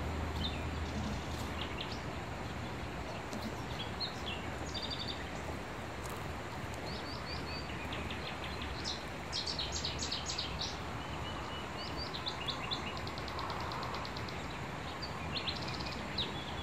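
Small birds chirping and twittering, many short high calls, busiest around the middle, over a steady background hiss of outdoor noise.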